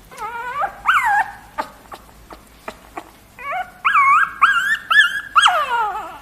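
A puppy whining in a string of high-pitched cries: two short ones at the start, then a run of longer ones after a pause, the last sliding down in pitch.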